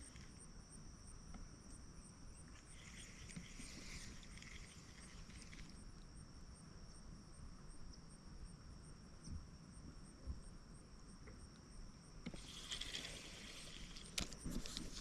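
Faint insects trilling, a steady high whine with a regular high chirp about two or three times a second. Near the end comes a rustle and a few sharp clicks.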